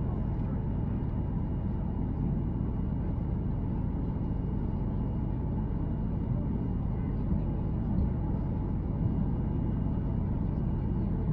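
Steady low rumble of a Boeing 737-800, engine and airflow noise heard from inside the cabin, with a faint steady high whine above it.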